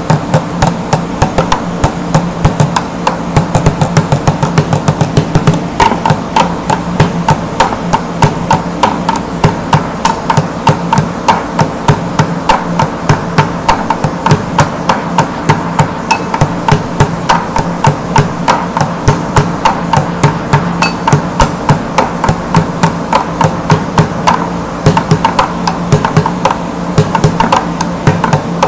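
Bucket drumming: a fast, continuous stream of strokes on a bucket, with louder accents falling about twice a second in a steady rhythm.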